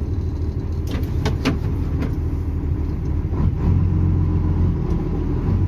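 Mercedes-Benz 1620 truck's six-cylinder diesel engine running at idle, heard from inside the cab, with a few short clicks about a second in. The engine note grows louder about three and a half seconds in.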